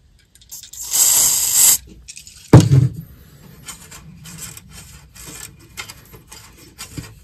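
A short burst of aerosol contact cleaner sprayed from the can, a steady hiss lasting under a second. About two and a half seconds in there is a single loud knock, followed by faint small clicks and rubbing.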